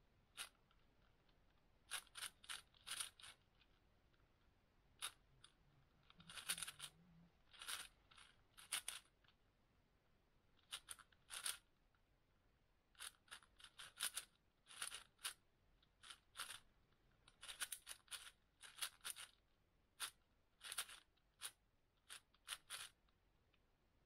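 A 6x6 speedcube being turned during a solve: faint, short scratchy sounds of plastic layers turning, in quick runs of several moves with brief pauses between them.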